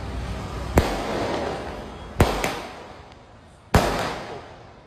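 Fireworks going off: four sharp bangs, roughly a second and a half apart, with the middle two in quick succession. Each bang trails off over the next second or so.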